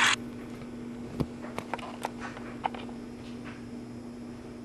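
HO-scale model passenger cars rolling slowly to a stop on the track, giving a scatter of small sharp clicks and ticks over a steady low hum.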